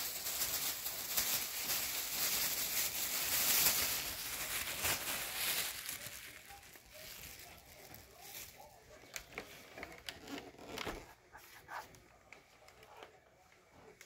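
Plastic bag crinkling and rustling as scraps of paper are shaken out of it onto carpet, strongest for the first six seconds or so. After that, only faint scattered clicks and handling noises.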